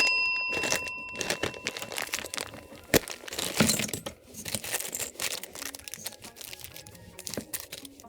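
Crinkling and rustling handling noise with many irregular clicks and a sharp tap about three seconds in. A high ringing tone fades out in the first second.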